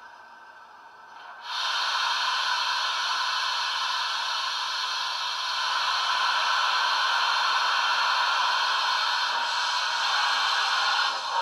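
Steam hiss from the sound decoder of a model D16/3 steam locomotive (Wheeltappers sound project), played through its small on-board speaker. It starts about a second and a half in, holds loud and steady for around nine seconds, and changes near the end as the model begins to move off.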